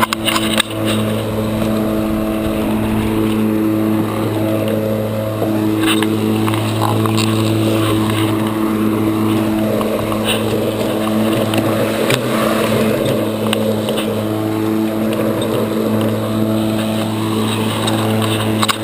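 Worx 56-volt cordless electric lawn mower running and cutting grass: a steady, even motor and blade hum, with a few sharp ticks.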